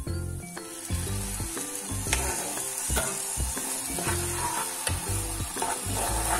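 Milk poured into a hot kadhai of roasted desiccated coconut and sugar, sizzling from about a second in, with a spoon stirring and scraping the pan. Background music with a steady beat plays underneath.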